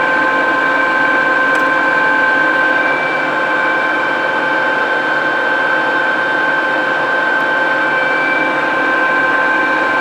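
Toolmex engine lathe running under power with its lead screw turning: a steady gear whine made of several constant high pitches over a mechanical hum.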